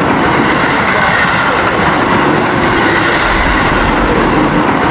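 Train running: a steady, loud rumble and rattle of rail cars, with a brief high-pitched sound about two and a half seconds in.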